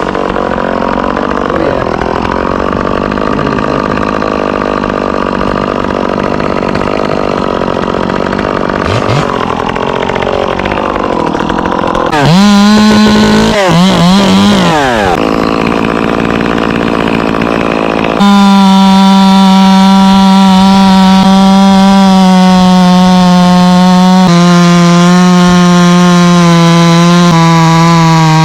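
Two-stroke chainsaw cutting wood under load, then revved up and down twice about twelve seconds in. From about eighteen seconds on it runs loud and steady at full throttle, with its pitch stepping down slightly twice near the end.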